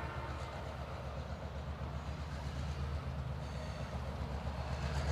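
Diesel locomotives of a CSX freight train running with a steady low rumble.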